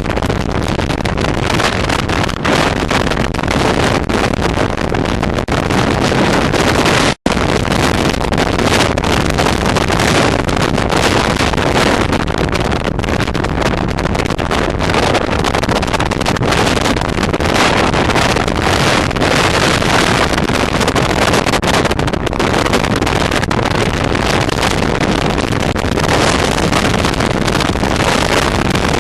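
Waterfall rushing: a loud, steady, even roar that cuts out for an instant about seven seconds in.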